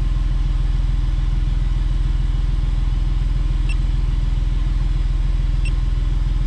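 Smart Fortwo's three-cylinder engine idling steadily. Two short electronic beeps from the OBD2 gauge pod's button, about four and six seconds in, as its screens change.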